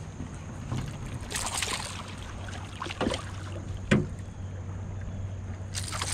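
A hooked largemouth bass splashing and thrashing at the surface beside the boat, in bursts about a second in and again near the end, with two sharp knocks between them. A steady low hum runs underneath.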